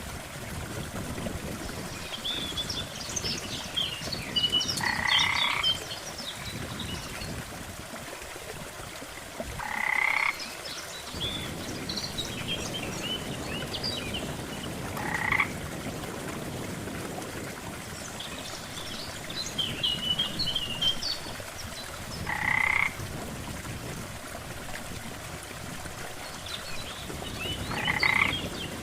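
Frogs croaking: five short, rapidly pulsed croaks spaced about five to seven seconds apart, with faint high chirps in between, over a steady low rush of water.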